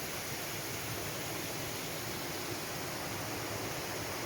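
Waterfall, the steady rush of falling water.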